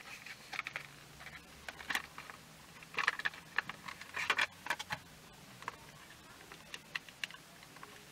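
Hard plastic packaging of a phone case being opened and handled: irregular crinkling and clicking, busiest a few seconds in. Sparser clicks follow as the case is pressed onto the phone.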